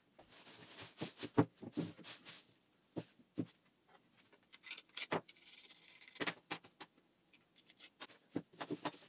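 Handling noises on a workbench: a plastic bag crackling as it is spread out, with scattered knocks and clicks as wooden parts and a metal wrench are set down on it.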